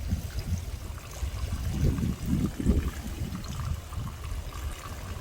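Wind buffeting the microphone: an irregular low rumble that swells in gusts, strongest a couple of seconds in, over a faint hiss.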